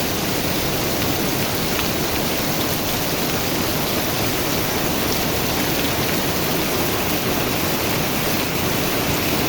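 Heavy rain pouring down in a steady dense hiss, with a few faint drop ticks.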